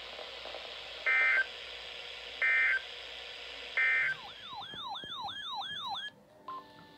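Emergency Alert System SAME header on weather radio: three identical short bursts of screeching digital data tones about a second and a half apart. They are followed by about two seconds of a warbling siren-like alert tone, which cuts off suddenly, over steady radio hiss.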